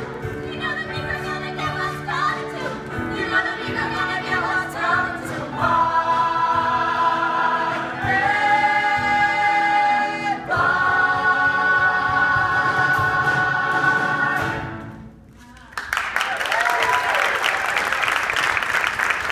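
Cast ensemble singing a musical-theatre number with a live band, ending on long held chords that cut off about fifteen seconds in. After a short pause the audience applauds.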